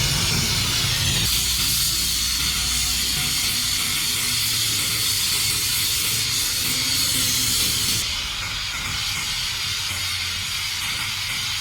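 A loud, steady hiss, its highest part dropping away suddenly about eight seconds in.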